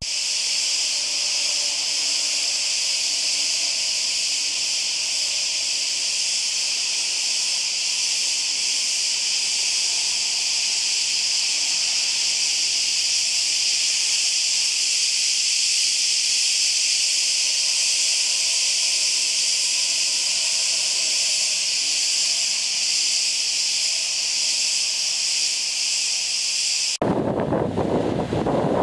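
Dense chorus of cicadas, a steady high-pitched buzz that runs unbroken. Near the end it cuts abruptly to surf breaking on rocks, with wind on the microphone.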